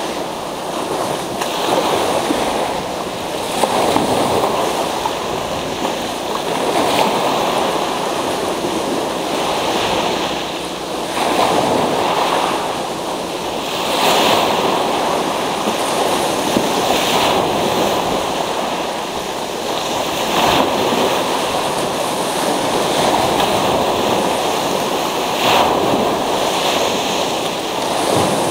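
Sea surf breaking and washing up a pebble beach in repeated surges, the sound swelling and easing every few seconds.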